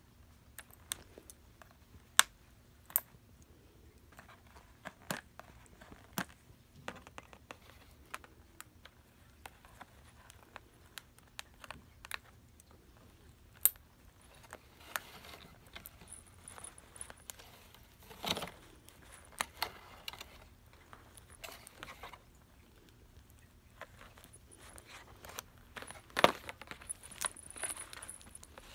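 Cat toy packaging being handled: scattered sharp clicks and taps, with a few stretches of cardboard and plastic rustling and a louder clatter near the end.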